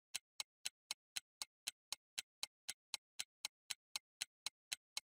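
Clock-like ticking sound effect, an even run of short ticks about four a second, timing a pause for solving the problem.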